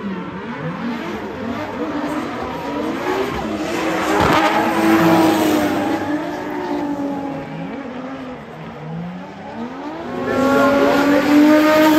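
A drift car's engine revving up and down through a drift, with its tyres squealing. The engine pitch sags and then climbs sharply about ten seconds in.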